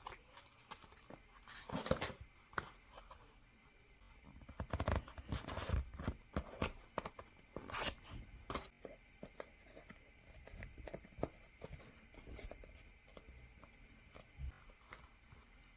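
Packaging being handled and unwrapped by hand: intermittent rustling and crinkling of plastic wrap with small taps and clicks, busiest in the middle.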